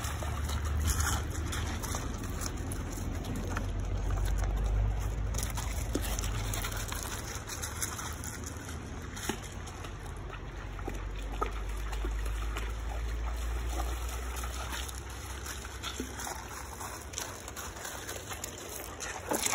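River water trickling and sloshing, with a steady low rumble and a few faint clicks.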